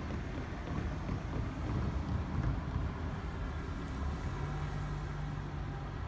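Low, steady rumble of rail and road traffic, with wind on the microphone; a steady low hum sets in about four seconds in.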